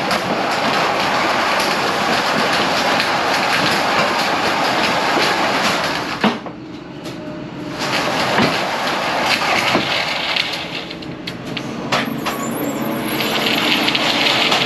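Forklift working at the side of a truck trailer, loading pallets of bagged soil: engine running, with rattling and clattering from the forks and pallets. The noise drops briefly about six seconds in, then picks up again.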